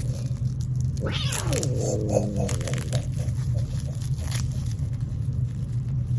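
Domestic cat giving one drawn-out, complaining meow about a second in, its pitch falling away over a second or so. It is the meow of a grumpy, hungry cat that has not yet been fed.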